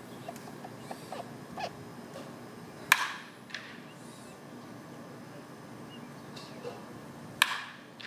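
Two sharp cracks of a bat hitting a baseball in batting practice, about four and a half seconds apart, each with a short ringing tail.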